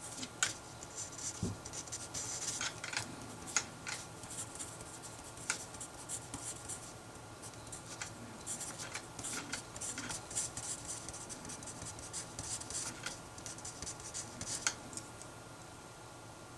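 Handwriting on paper: scratchy strokes in irregular spurts, with occasional light taps as the writing tip meets the page.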